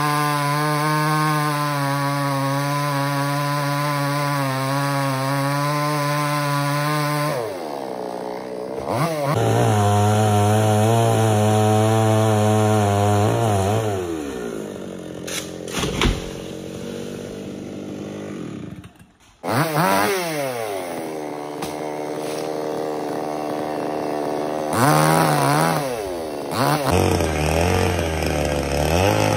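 Two-stroke chainsaw running at high revs, easing off toward idle and revving up again several times.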